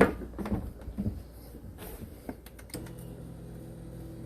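A few quick clicks and knocks, then about three-quarters of the way in a steady electric motor hum starts and keeps going: the car's power seat motor moving the passenger seat.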